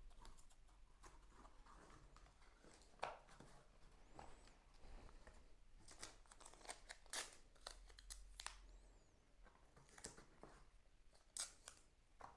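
Faint handling sounds of masking tape being torn and pressed onto wooden camera panels, with scattered light clicks and taps.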